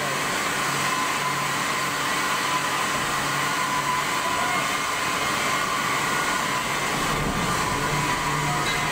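Steady industrial machine noise of a hot-forging press shop: an even hiss with faint steady whine tones and a low hum, with no distinct blows or knocks.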